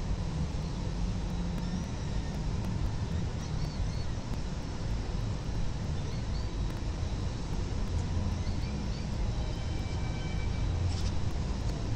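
Steady low rumble of distant city traffic picked up by an outdoor nest-camera microphone, with faint short high chirps now and then and a few thin high tones near the end.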